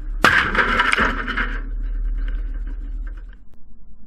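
A 9mm gunshot from some distance, with a sharp crack about a quarter second in and a report that rolls on and fades over a second and a half.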